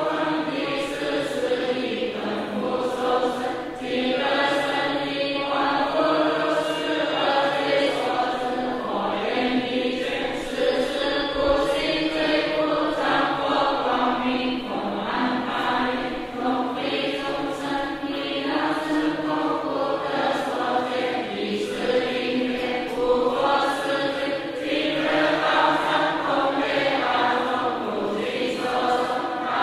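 A large assembly chanting a Chinese Buddhist repentance text aloud in unison, in Mandarin: a continuous group recitation without pause.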